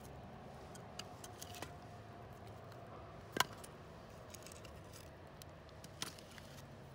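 Scattered light clicks and knocks of small hard objects over a faint steady hum. The sharpest knock comes about three and a half seconds in, with another near the end.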